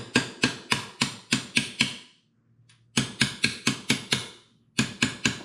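A hammer rapidly and lightly tapping a 3/8-inch socket extension used as a drift, driving the reverse shaft out of a 1939 Ford transmission case so the reverse gear can drop down. Sharp metal taps about four to five a second, in three runs broken by short pauses about two and four and a half seconds in.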